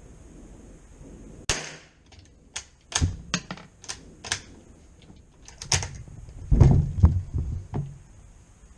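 A string of sharp mechanical clicks and clacks, irregularly spaced, as the Zastava CZ 99 .22 bolt-action rifle is handled; the heaviest, deepest knocks come near the end.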